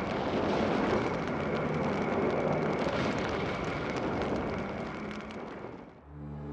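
Battle sound effect: a dense, continuous roar of fire and blasts with crackling running through it, fading out about six seconds in.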